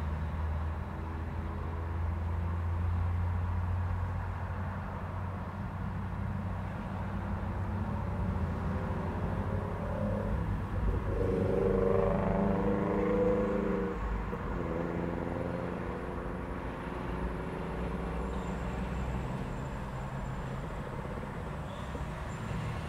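Road traffic at an intersection: vehicle engines running under a steady low rumble, with one vehicle's engine growing louder about halfway through and then fading.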